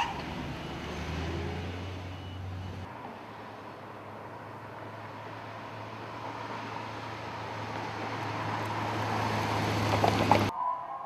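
Saleen Mustang police car driving past: a brief high squeal at the start, then steady engine hum and tyre noise growing louder as the car approaches. About ten and a half seconds in the sound cuts off suddenly and a steady higher tone takes over.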